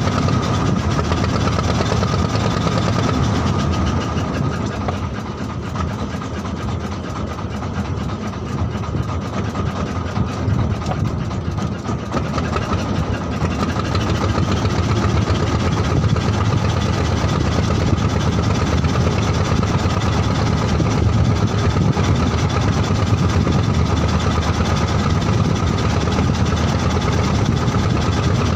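Wooden fishing boat's engine running steadily, a low, dense rumble with a steady higher tone above it; it eases slightly in loudness for a few seconds near the start, then picks up again.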